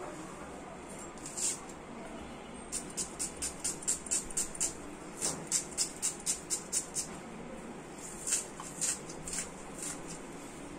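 Dry papery shallot skin crackling as it is peeled by hand with a knife: a run of quick, sharp crackles, about four a second, then a few more near the end.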